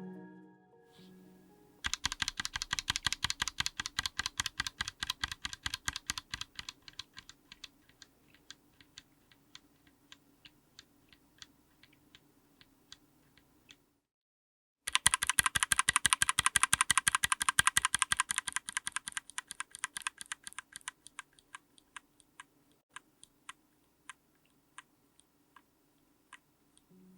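Mechanical keyboard with stock, factory-lubed Akko x TTC Demon linear switches on an FR4 plate being typed on fast. There are two runs of typing, each starting as a dense clatter and slowing to scattered single keystrokes, with a one-second break between them near the middle. Fading music is heard briefly at the start.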